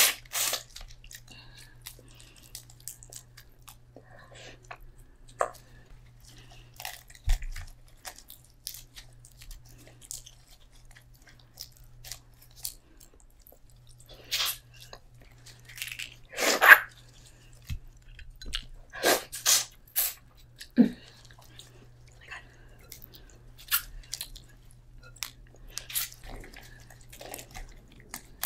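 Close-up eating sounds of a Cajun seafood boil: shellfish shells cracking and being pulled apart, wet squishing, and chewing, in scattered irregular clicks and crunches with a few louder cracks past the middle.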